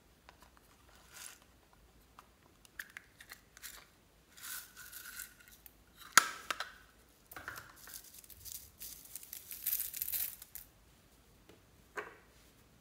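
A plastic container handled and opened, with a sharp click about six seconds in as the loudest sound. Small gold heart-shaped sequins are shaken out of it onto foam beads in bursts of rustling and crinkling, with a small click near the end.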